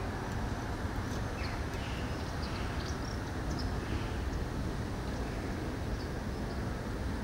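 Steady low rumble of distant traffic, with faint short bird chirps scattered through it.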